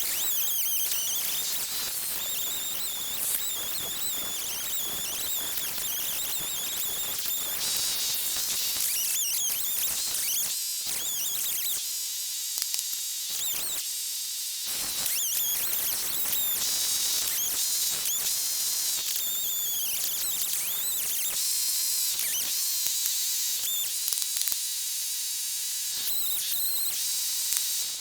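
Outdoor chorus of high-pitched chirping and wavering trills from wild creatures, holding steady throughout.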